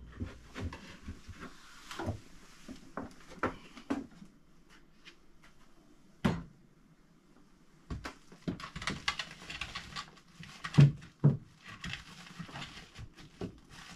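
A painted wooden vent box knocking and scraping as it is handled and pushed into a rectangular opening in a wall, with scattered clicks and a few louder thumps, the loudest two close together about two-thirds of the way through.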